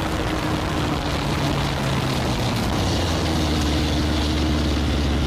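Honda CBR600 motorcycle engine in a buggy, heard from on board while driving. About two seconds in, the engine note drops as the buggy slows, then it runs on low and steady.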